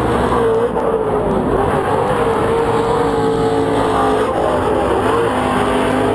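Pro2 short-course off-road race trucks' V8 engines running at race pace, the engine note wavering up and down as the trucks accelerate and lift, with one truck passing close by.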